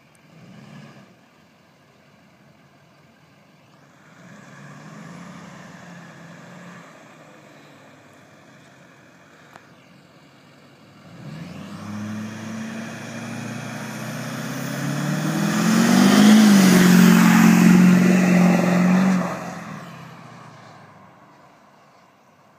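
GMC 2500HD's Duramax 6.6 L turbodiesel V8, through a 5-inch Magnaflow exhaust, launching at full throttle. After a quieter spell of running, the engine note climbs steeply from about eleven seconds in, is loudest as the truck passes close, then fades as it pulls away.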